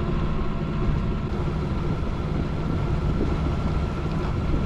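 Contessa 35 sailboat's inboard diesel engine running steadily at cruising speed, with a light hiss of water and wind over it.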